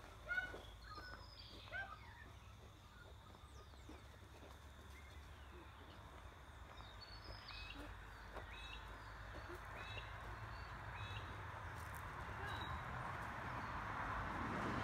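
Wild birds chirping and calling in short notes, with a run of evenly spaced repeated calls midway, over a faint background rush that grows steadily louder toward the end. A single sharp knock sounds just after the start.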